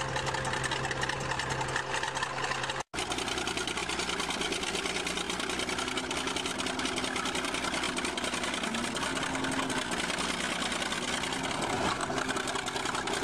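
Crawler bulldozer's diesel engine running with a fast, steady clatter. The sound cuts out abruptly about three seconds in, and engine clatter picks up again as a bulldozer climbs onto a car.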